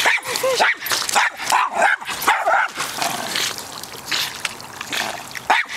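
A dog whining and yipping in short high calls while it swims, with water splashing and churning around it.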